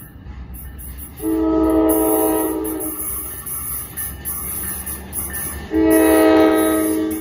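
Train horn sounding two long blasts as the train approaches, a chord of several tones each time. The first blast starts about a second in and lasts nearly two seconds; the second comes near the end and lasts about a second and a half. A low rumble of the train runs beneath.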